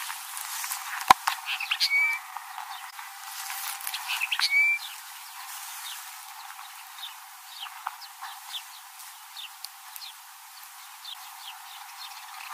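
Desert finch singing: a run of short, quick chirps and twitters, busiest in the first five seconds and sparser after. A single sharp click about a second in.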